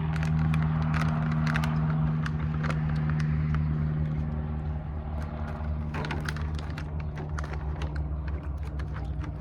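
Car engine idling steadily, heard from inside the cabin as a low hum, with irregular sharp clicks close to the microphone from someone chewing jerky. The hum eases a little about halfway through.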